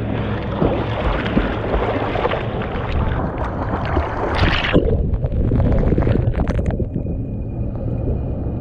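Ocean water rushing and splashing right at a GoPro on the water's surface as a bodyboarder paddles and takes a wave, a loud rushing noise. About five seconds in, the sound turns muffled and dull.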